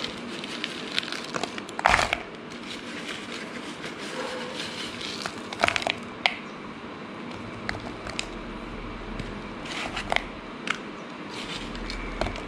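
Pieces of jaggery being added a little at a time into a plastic bowl on a kitchen scale, with scattered clicks and light rustling and crackling, clustered about two seconds in, around six seconds in and around ten seconds in.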